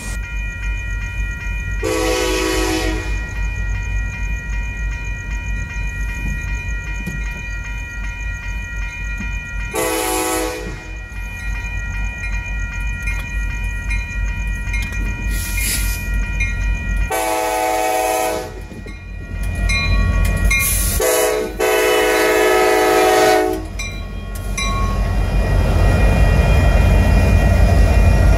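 A Kansas City Southern freight train's diesel locomotives sound their air horn in a series of blasts for a grade crossing, over a low engine rumble and the steady ringing of the crossing signal bell. The last two long blasts come close together. Near the end the lead locomotives pass close by with a rising loud rush of engine and wheel noise.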